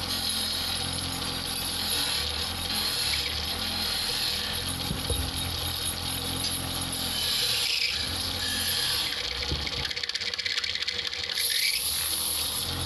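Woodturning lathe running, with a tool cutting the spinning wood, over background music.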